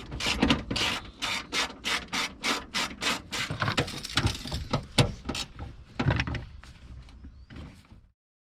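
Hand ratchet wrench being worked in quick, even strokes, about three or four a second, then a few slower, quieter knocks before the sound cuts off.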